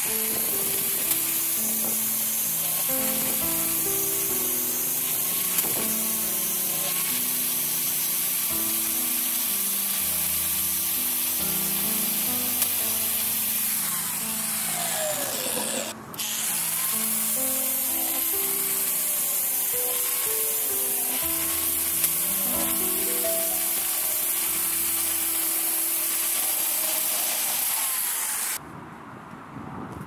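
Small power grinder with a thin abrasive disc cutting grooves into a cast cement stand: a steady, loud high hiss that breaks off briefly about halfway and stops near the end. Background music plays underneath.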